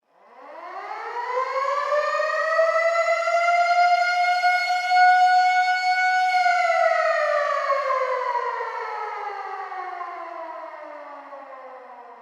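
Civil defense air raid siren: it winds up from a low pitch to a held high wail over about three seconds, holds for a few seconds, then winds slowly down in pitch and fades.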